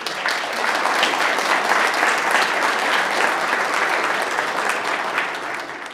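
Audience applauding, a dense round of many hands clapping that dies away near the end.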